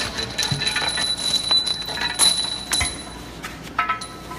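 Irregular metal-on-metal clinks and knocks as steel tools strike and pry at the large flanged gearbox housing of a robot arm joint, with a high, bell-like ring from the struck metal that hangs on until about three seconds in.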